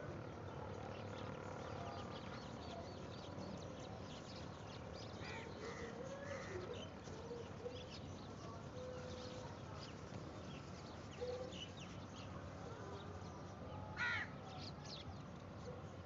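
A flock of house crows feeding on the ground, cawing on and off, with one louder, sharper caw about fourteen seconds in.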